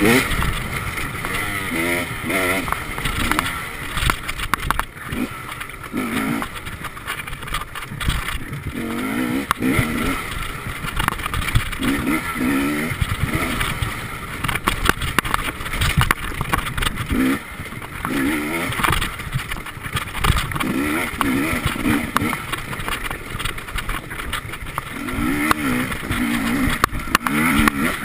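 Enduro motorcycle engine being ridden hard, its pitch rising and falling over and over as the throttle opens and closes, with frequent short knocks from the bike over the rough dirt track.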